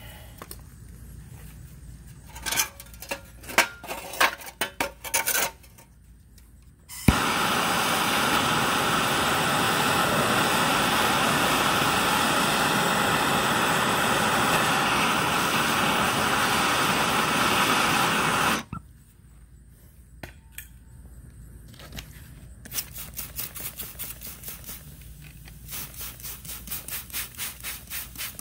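A handheld gas torch lit with a sharp click about seven seconds in, then burning with a steady hiss for about eleven seconds as it heats a rusted heat-shield bolt, cut off abruptly. Near the end, a trigger spray bottle squirts cold water onto the hot bolt in many quick squirts. A few clicks and knocks come before the torch is lit.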